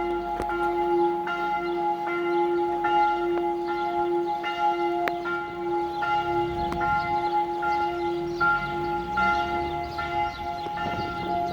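Several church bells pealing together. Their strikes overlap in a steady swinging rhythm, over long, sustained ringing tones.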